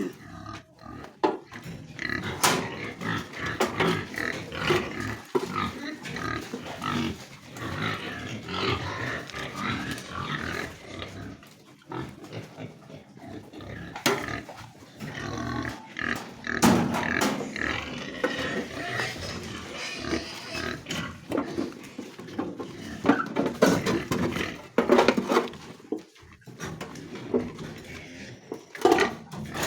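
Pigs calling in a pen, a dense, irregular mix of grunts and squeals, with sharp knocks every few seconds.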